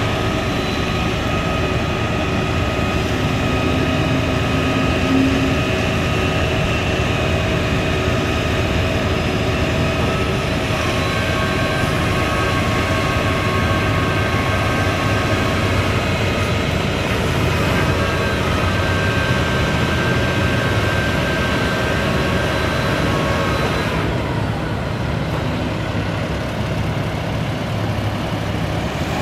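International 7500 crane truck's diesel engine running steadily with its crane raised, with a steady whine of several high tones over the engine. About 24 seconds in, the whine changes and its highest part drops away.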